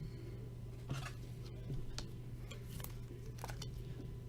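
Trading cards being handled, giving a few light clicks and rustles about once a second, over a steady low electrical hum.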